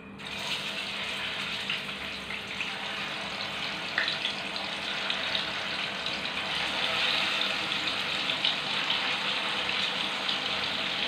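Spice-coated tuna pieces frying in hot oil, a steady sizzle as they are laid into the pan one by one, with a few small clicks and spits; the sizzle grows a little louder past the middle.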